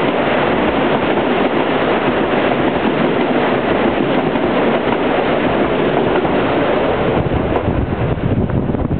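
JR Central KiHa 85 diesel railcars of the Wide View Nanki limited express running past and pulling away: a loud, steady rush of engine and wheel noise that dies down in the last couple of seconds. Wind rumbles on the microphone, most plainly near the end.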